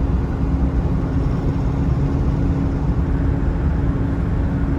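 Vehicle driving on the road: steady engine and road noise with a constant hum.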